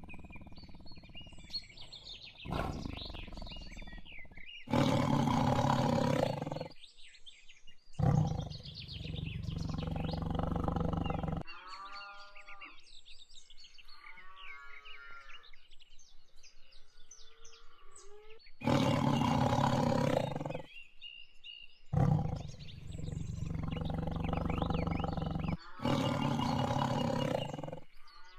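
Lion roaring and growling again and again, in long loud roars a few seconds apart, with birds chirping in the quieter gaps between them.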